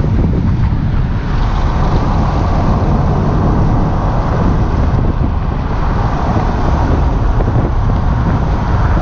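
Steady road and wind noise of a car driving at speed, heard from inside the cabin, heaviest in the low end.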